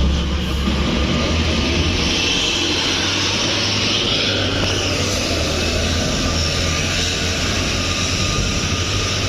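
Heavy road vehicle passing close: a steady low engine rumble with rushing road and air noise that swells near the middle.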